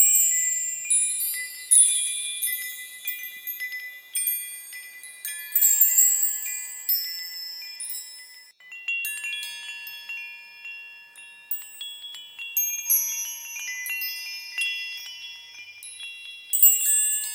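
High-pitched chimes or small bells tinkling, struck in irregular clusters every few seconds, their many overlapping tones ringing on and dying away before the next cluster.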